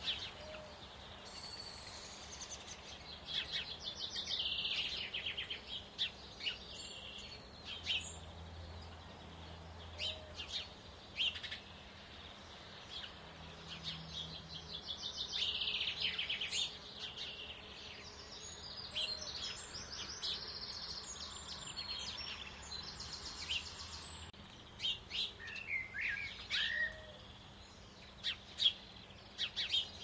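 Small songbirds singing and calling: a fast trilling song about four seconds in and again about fifteen seconds in, among scattered short chirps and sharp clicks.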